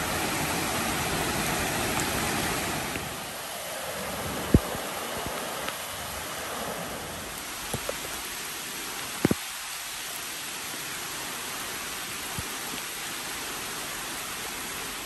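Steady rain falling through the forest, an even hiss that drops in level about three seconds in, with a few faint clicks scattered through it.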